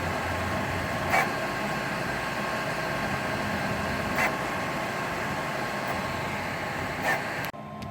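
Qidi X Plus 3 CoreXY 3D printer running a high-speed print: a steady whirr made of several steady motor tones, with a brief louder sweep about every three seconds as the print head moves. Near the end the sound drops abruptly to a quieter hum.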